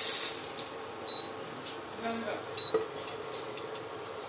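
Metal spatula clinking and scraping against a frying pan and plate as fried okra is served out, a few sharp ringing clinks about a second in and near the three-second mark. The hiss of the oil's sizzle dies away over the first second.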